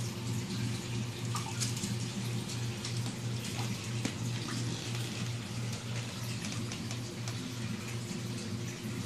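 Reef aquarium water circulation: a steady trickling, bubbling splash of moving water with scattered small pops, over a constant low electrical hum.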